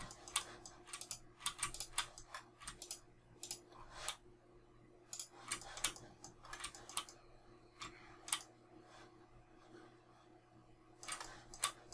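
Computer keyboard keys and mouse buttons clicking in an irregular patter, with a lull about two-thirds through before a few more clicks near the end. A faint steady hum lies underneath.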